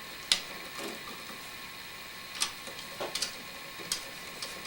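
Scattered small metallic clicks and ticks of a screwdriver working the ground screw on a dimmer switch as it is tightened down on the grounding wire, over a faint steady hum.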